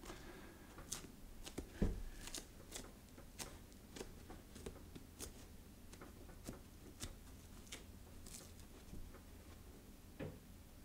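Faint, irregular small clicks and rustles of hands pressing and handling foam rubber pieces joined with contact cement, with a soft thump about two seconds in and another near the end.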